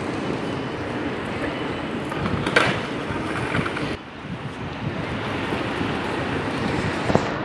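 Steady rumble of trains moving on station tracks. It drops briefly about four seconds in, and a sharp clack comes about two and a half seconds in, with a couple more near the end.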